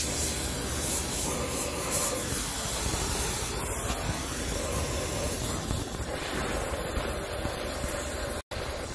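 Steady hiss of an oxy-fuel gas torch flame burning out the oil-clogged muffler of a two-stroke brush cutter. The sound cuts out for a moment near the end.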